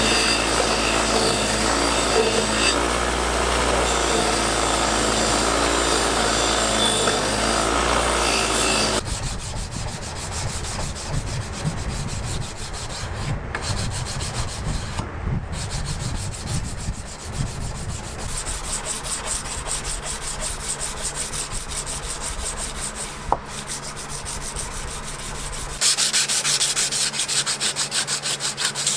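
Sanding with a power tool, work held against a running abrasive that rasps steadily. The sound comes in several stretches that change abruptly about 9, 18 and 26 seconds in, the last and first louder than the middle.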